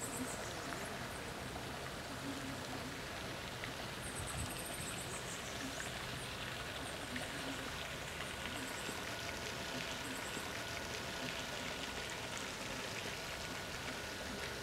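Outdoor lakeside ambience: a steady rushing noise like running water, with short high-pitched chirping trills a few times over it and a faint steady whistle-like tone in the second half.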